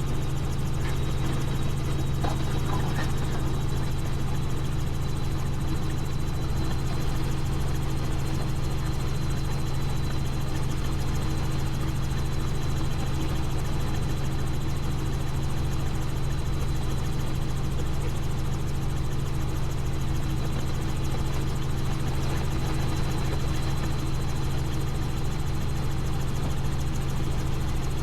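Helicopter in flight, heard from inside the cabin: a steady low rotor and engine drone with a thin, steady high whine above it.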